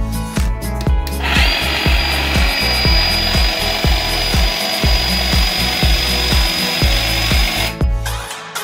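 IKRA IAHS 40-5425 cordless hedge trimmer running again after repair of its 180° rotating handle: a steady motor and blade buzz with a constant high whine starts about a second in and stops near the end. Dance music with a steady beat plays throughout.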